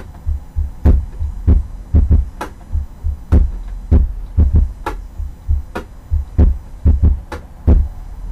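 Instrumental drum beat with no singing: deep, heavy thumps about two a second, with sharper, lighter hits between them.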